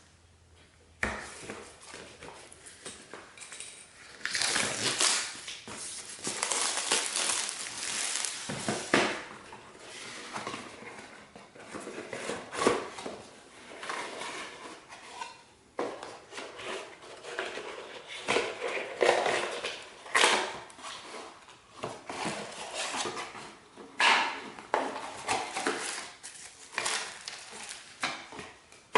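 A smart dimmer switch's box and packaging being opened and handled by hand: rustling with many small clicks and knocks throughout.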